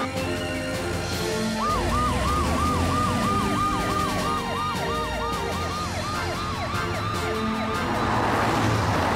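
Police car siren in fast, repeating up-and-down sweeps. It starts about a second and a half in and fades out near the end, over background music.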